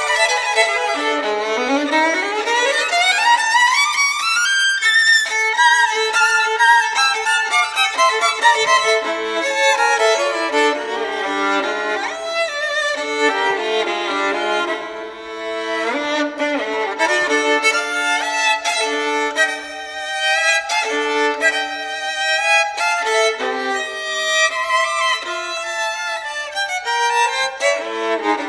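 Violin music with fast passages and no accompaniment in the low range. A quick scale runs steadily upward over the first few seconds.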